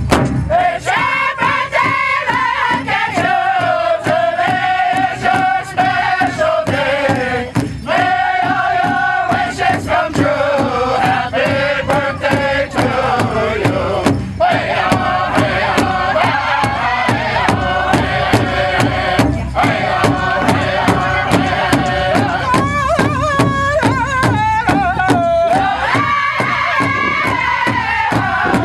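Powwow drum group: a big drum struck in a steady, even beat while the singers chant in high voices, each phrase starting high and sliding down in pitch.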